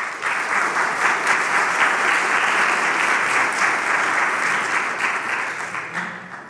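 Audience applauding, a dense patter of many hands clapping that starts suddenly and dies away over the last second.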